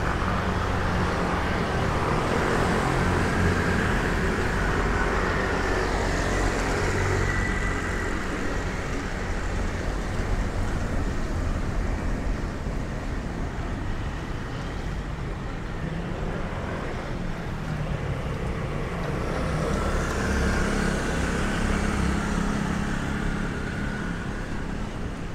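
Road traffic on a city street: a steady wash of engine and tyre noise, with vehicles swelling past now and then.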